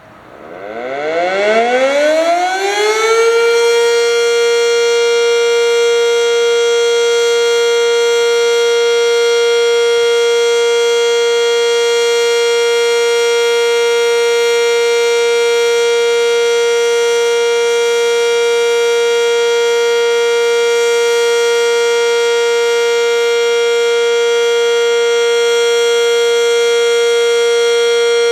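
Fire company's house siren sounding a test: it rises in pitch for about three and a half seconds, then holds one loud, steady tone.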